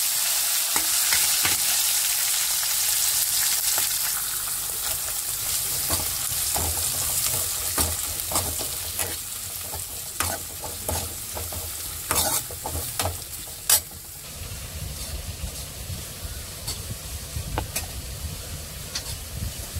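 Chopped onions, tomatoes and green chillies sizzling as they go into hot oil with mustard seeds and cumin in a metal kadai, stirred with a steel ladle that clicks and scrapes against the pan. The sizzle fades, and after about 14 seconds it drops to a quieter low rumble with light ticks.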